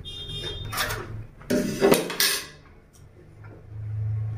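An empty disposable paper plate being handled and set down on the table: a short rattle and rustle, then a louder scrape and tap in the middle. A steady low hum runs underneath.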